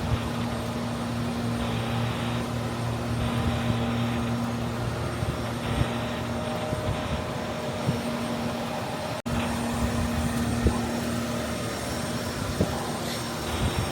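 Steady low mechanical drone of a machine or engine running on the street, with a constant hum under it. The sound drops out very briefly about nine seconds in.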